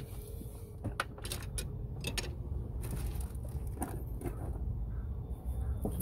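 Small irregular clicks and taps of a plastic wiring-harness connector and its crimped terminal being worked by hand, over a low steady rumble.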